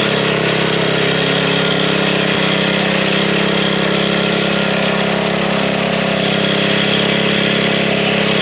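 Small gas engine of a bed edger running steadily at an even speed.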